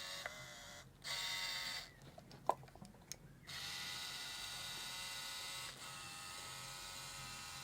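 Motorized power zoom of a Nizo 156 Macro Super 8 camera whirring: two short runs, a pause with a few small clicks, then one long steady run of about five seconds.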